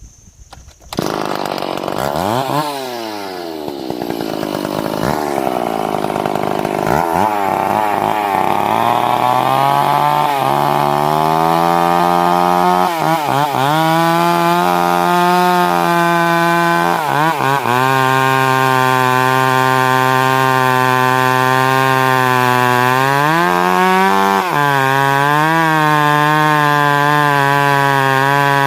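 Two-stroke chainsaw starting about a second in and being revved up and down a few times. It then settles into a loud, steady high-speed run, with brief dips in pitch now and then.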